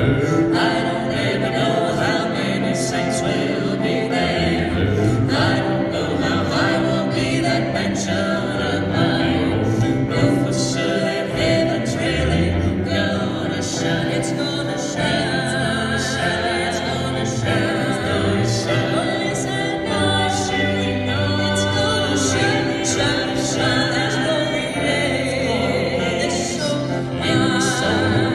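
Southern gospel group singing in close harmony to electric guitar accompaniment, amplified through a PA.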